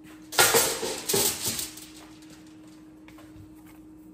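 Metal spoon scraping seeds out of a halved spaghetti squash and clattering on the wooden cutting board: a few quick, loud strokes about half a second in, over within about a second and a half.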